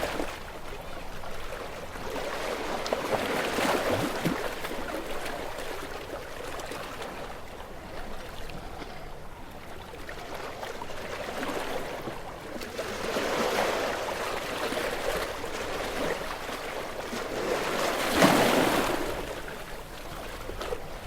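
Sea waves breaking against rocks, surging and washing back in a continuous rush. The loudest crash comes near the end.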